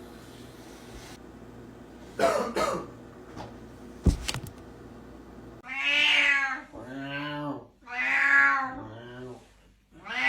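Domestic cat meowing in long, drawn-out calls: three in a row from about six seconds in, the middle one lower, and a fourth starting right at the end. A short knock comes about four seconds in.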